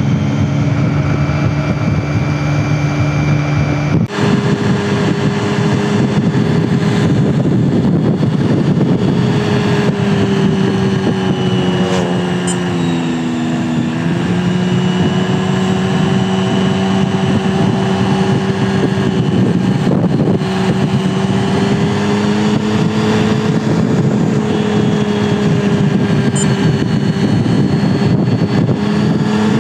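A vehicle's engine running steadily while driving, over wind and road noise. About four seconds in, the engine note jumps abruptly higher. Around twelve seconds in, it dips and then climbs back up.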